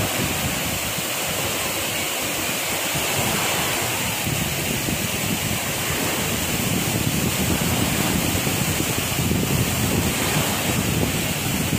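Small waves breaking and washing in shallow surf, with wind buffeting the microphone; the rush grows a little louder in the second half.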